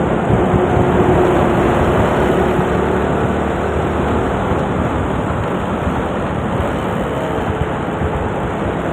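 Motor scooter riding along a road in traffic: a steady rush of wind and road noise with engine sound underneath, and a faint hum from a truck being passed in the first couple of seconds.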